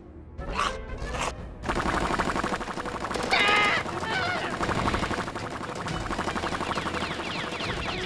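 Cartoon sound effects over background music: a rapid rattle like machine-gun fire, starting about a second and a half in and running on, with a couple of short squawking calls partway through.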